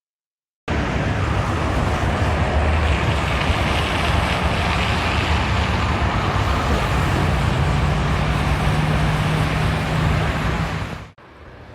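A moving road vehicle: a low engine hum under loud, steady rushing road and wind noise. It starts suddenly after a brief silence and cuts to a quieter hiss near the end.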